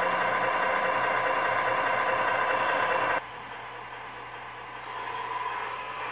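Simulated truck diesel engine idling, played through the onboard sound unit's speaker of a Tamiya Scania R620 1/14 RC truck. It is steady, then quieter after a cut about three seconds in, rising a little near the end.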